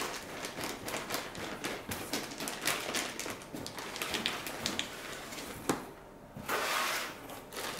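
Crinkling plastic wrap and rustling cardboard as a plastic-bagged car head unit is lifted out of its box, with a longer, louder rustle near the end.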